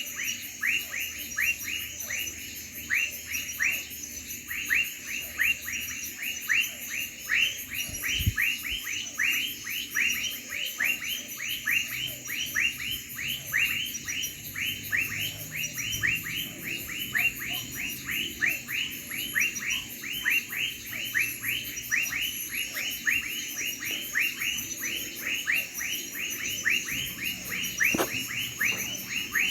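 Chorus of crickets at night: a fast, high pulsing trill, with a louder repeated falling chirp about three times a second.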